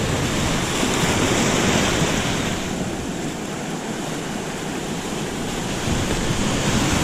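Surf washing and foaming around shoreline rocks, a steady rush of breaking water that eases a little in the middle and builds again near the end.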